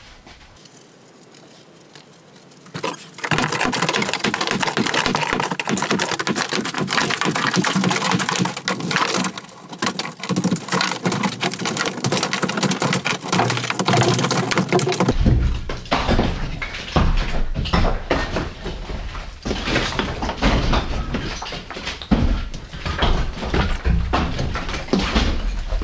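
Sledgehammer breaking up a brick wall: dense, rapid knocking and clattering of bricks and rubble, starting about three seconds in, with heavier thuds added about halfway through.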